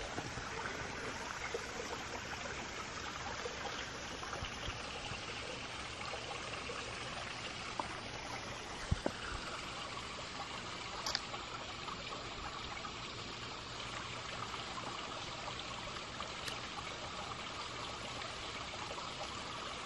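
Small stream trickling steadily.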